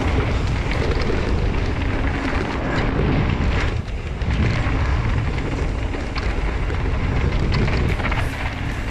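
Wind buffeting the camera microphone of a mountain bike descending a dirt trail, over a low rumble of tyres on the ground, with scattered clicks and rattles from the bike.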